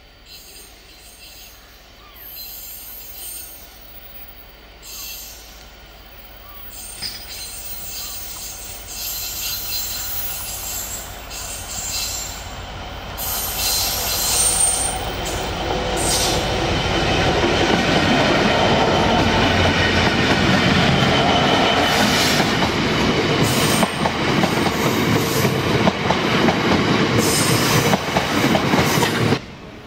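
Class 66 diesel locomotive and its train of loaded biomass hopper wagons approaching and passing close, the sound building steadily from faint to loud. The wagons then roll by with wheels clattering and squealing on the rails, cut off suddenly near the end.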